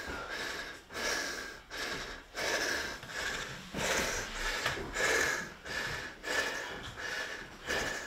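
A person breathing hard in a steady rhythm, one noisy breath about every three-quarters of a second.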